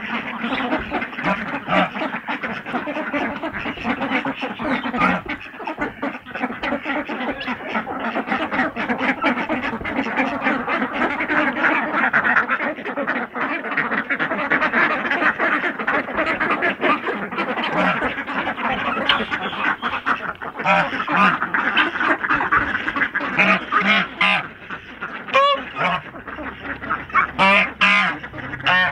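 A flock of domestic ducks quacking steadily all together, with a white domestic goose honking several times near the end.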